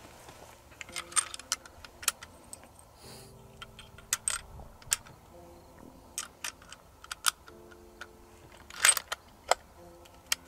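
Metallic clicks and clinks of .223 Remington cartridges being handled and loaded into a Zastava M85 bolt-action rifle: a scattered string of short sharp clicks, the loudest cluster just before nine seconds in.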